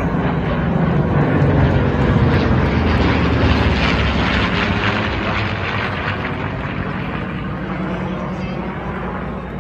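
A formation of WWII piston-engine fighters (P-51 Mustangs, a P-47 Thunderbolt and a twin-engine P-38 Lightning) passes overhead. The engine drone is loudest in the first few seconds and drops in pitch as the planes go by, then slowly fades as they fly away.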